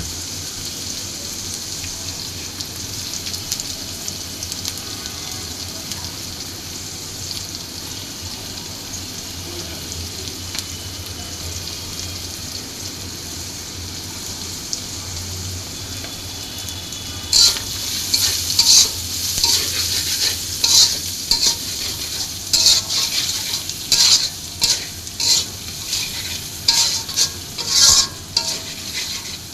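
Food sizzling steadily in hot oil in a pan. From a little past halfway, a spatula starts stirring and scraping it in quick repeated strokes, several a second, louder than the sizzle.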